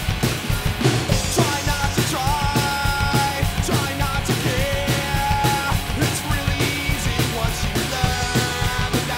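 Mapex drum kit played fast and hard along with a rock song, bass drum and snare driving a dense beat under constant cymbal wash, while the song's melody line holds and bends above it.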